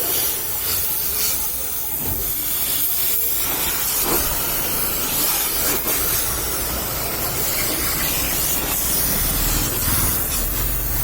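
Steady hiss of a high-pressure water spray, as from a pressure washer washing a vehicle.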